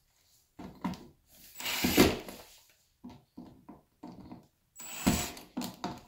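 DeWalt cordless drill-driver running in several short bursts as it backs out the mounting screws of a wall light switch, with small clicks in between.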